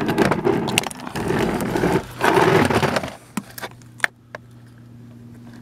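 Hands working the plastic door card and the speaker wire connector on a car's front door: about three seconds of scraping and rattling with sharp clicks, then a few light clicks over a low steady hum.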